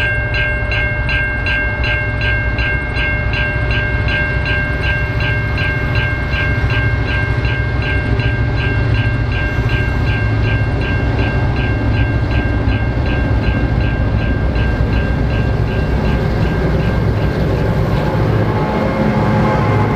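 Clyde-EMD X-class diesel locomotive X31, with its EMD 16-567E engine, leading a container freight train as it approaches and passes close by. The low engine drone grows louder near the end. Through most of it a high ringing pulses rapidly, about three times a second, and fades out about three-quarters of the way in.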